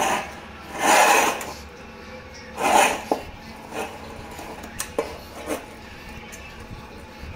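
Steel dog bowl in a red base scraping on a concrete floor and knocking as pugs paw at it: three scrapes in the first three seconds, then a few light clicks.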